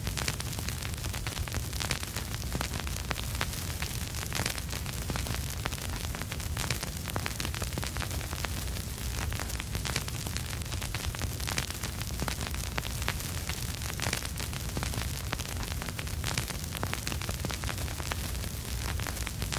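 Vinyl record surface noise: a steady hiss with a low rumble underneath, dotted with irregular crackles and pops from the stylus riding the groove, with no music playing.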